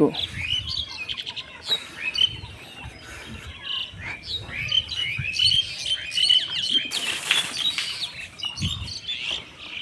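Birds chirping over and over in short rising and falling calls, with a brief rustling noise about seven seconds in.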